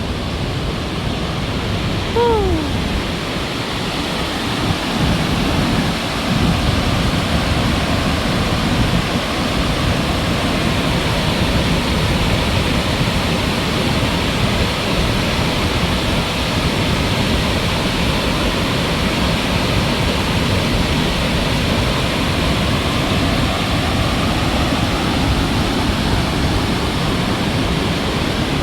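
Loud, steady roar of Victoria Falls: the Zambezi's water thundering down the gorge, heard as a dense rushing noise. About two seconds in there is a brief tone that falls in pitch.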